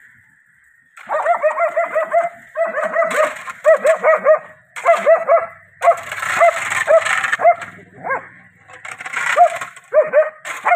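German Shepherd barking in rapid runs of short barks, starting about a second in.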